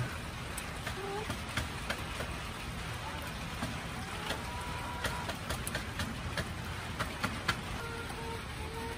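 Hens pecking mealworms and scratch grain out of metal pie-tin treat pans: a scatter of sharp ticks of beaks on the tin, with a few short soft hen calls. Steady rain hiss runs underneath.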